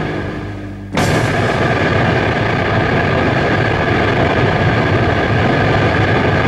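Rock band playing a heavy instrumental. A loud held chord fades, then the band strikes it again hard about a second in and sustains it.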